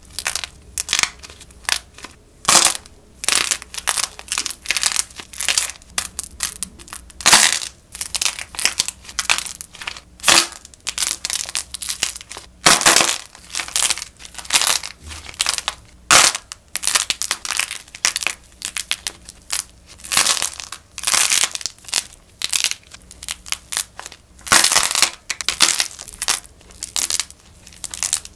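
Hand-made clay macarons being squeezed and torn apart in the hands, the dried clay crust cracking with crisp crackles and crunches in quick, irregular clusters.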